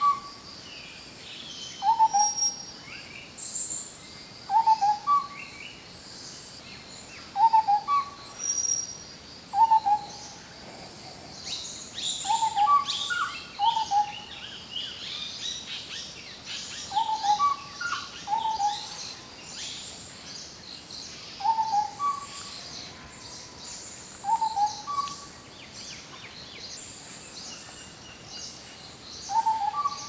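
Indian scimitar babbler calling: a short low note repeated every two to three seconds, several of them followed at once by a brief higher note. Fainter high chirps and trills run behind.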